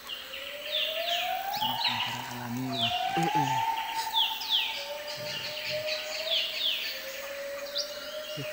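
Tropical forest wildlife calling: high, downward-sliding calls repeated every second or so, often in quick pairs. Over them runs a long siren-like tone that rises, drops back, rises again and then holds at a lower pitch.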